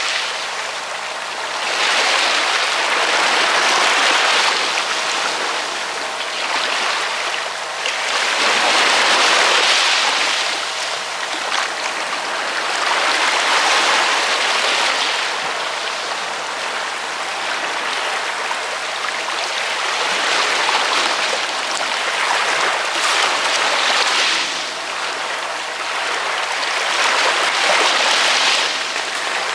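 Ocean waves washing in on the shore, the surf swelling and easing every several seconds in a continuous hiss.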